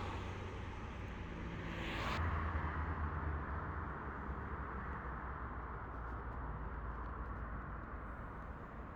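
Steady rumble of road traffic with a low engine hum; the higher hiss drops away abruptly about two seconds in.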